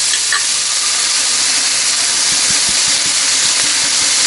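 Sliced sausage and green pepper sizzling steadily in a frying pan as tomato passata is poured in from a glass bottle, with a few soft low knocks about two to three seconds in.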